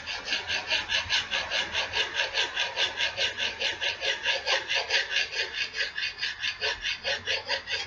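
Fast, even back-and-forth rubbing of a hand abrasive (file or sandpaper) along the steel edge of an axe, about six strokes a second, sharpening a blunt, damaged edge.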